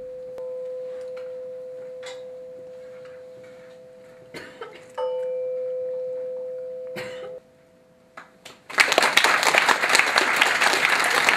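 A struck metal bell rings with a steady tone and slowly fades. It is struck again about half a second in and again about five seconds in, then cut short. From about nine seconds in, loud audience applause.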